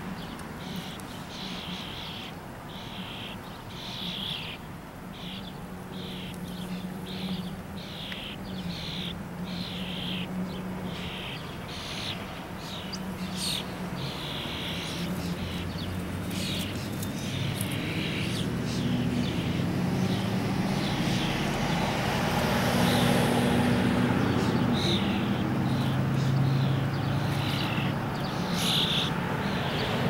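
European starling fledglings begging for food with repeated harsh calls, about one or two a second. A low engine or traffic hum runs underneath and grows louder in the second half.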